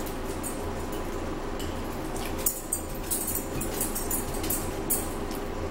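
Fork tapping and scraping against a plate and bowl as food is eaten, a series of short clicks starting about halfway through, over a steady background hum.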